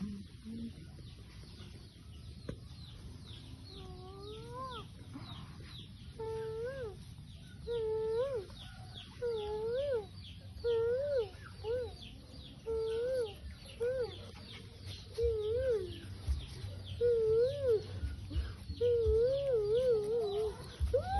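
A dog whining in a series of short wavering, rising-and-falling calls, about one a second, with faint rapid high chirping behind.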